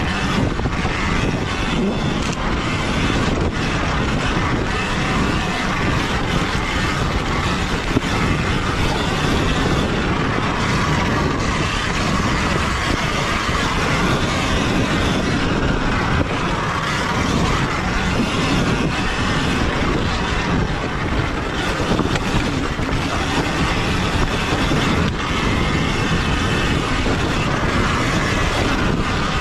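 Sur-Ron Ultra Bee electric dirt bike ridden over a rough, rocky dirt track: steady wind rush on the bike-mounted camera mixed with tyre noise and rattling from the chassis. There is no engine sound, only the near-silent electric drive.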